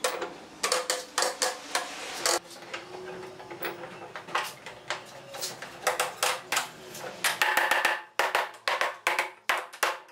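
Hammer knocking on a wooden block in quick runs of repeated knocks, with a short pause partway through: tapping edge-glued boards flush while they sit in pipe clamps.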